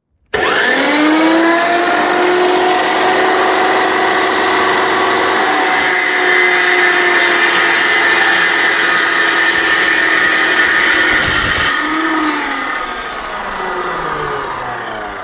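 Abrasive chop saw starting up and spinning to speed, then grinding through the steel tube of a tractor top link with a harsh, bright cutting noise. Near the end it is switched off and winds down, its pitch falling.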